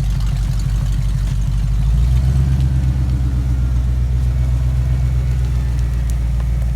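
Pickup truck engine running loudly at idle. About two seconds in it steps up to a slightly higher, steadier pitch.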